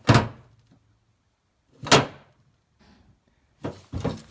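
Two sharp knocks about two seconds apart, hard objects struck or set down, the first with a short low ringing tail.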